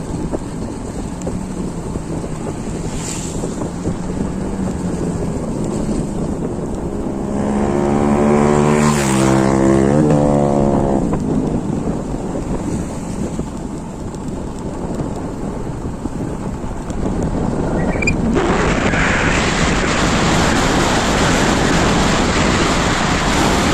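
Steady rain hiss. A motor vehicle passes between about 8 and 11 seconds in, its engine note dipping in pitch and rising again. The rain turns louder and more hissing from about 18 seconds in.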